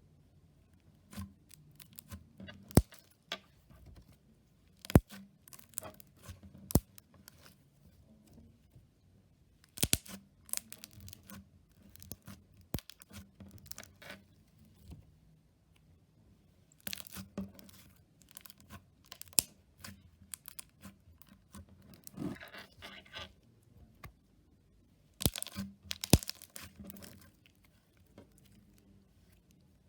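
Slime being handled, with irregular sharp pops, clicks and crackles and a few denser crackling stretches.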